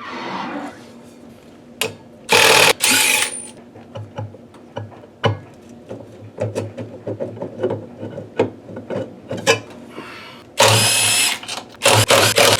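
A power drill/driver running in short bursts, spinning out fasteners on a washing machine. There are three bursts: one about two seconds in, and two near the end. Between them are small clicks and rattles of parts being handled.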